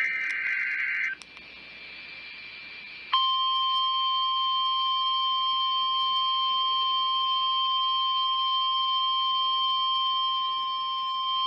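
NOAA Weather Radio emergency alert signal: the last SAME digital header burst, a harsh warbling screech lasting about a second. About three seconds in, the 1050 Hz warning alarm tone starts, a loud steady single-pitch tone announcing that a warning message follows.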